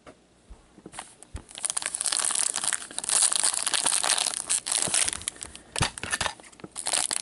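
Foil wrapper of a trading-card pack crinkling and tearing as gloved hands handle and open it, a dense run of crackling rustles that starts about a second in.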